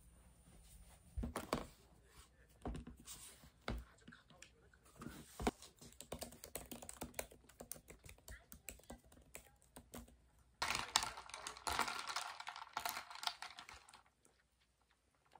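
A few knocks as things are set down on a desk, then light typing on a laptop keyboard. Near the end comes a louder stretch of clattering, ice rattling in a tall glass as an iced latte is stirred with a straw.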